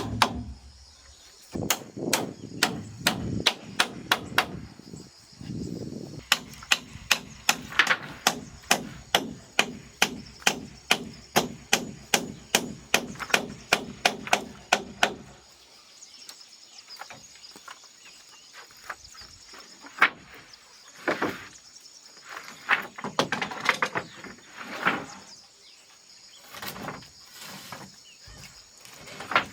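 A hand tool striking wood again and again, about two blows a second, over a low steady hum. About halfway through, the hum stops and the blows thin out to scattered knocks.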